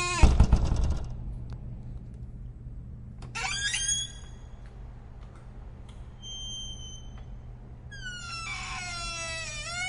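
A very squeaky door hinge squealing as the door swings. A falling squeal ends in a low thud as the door shuts just after the start, then a short squeak comes a few seconds in, and a long wavering squeal sliding down in pitch begins near the end.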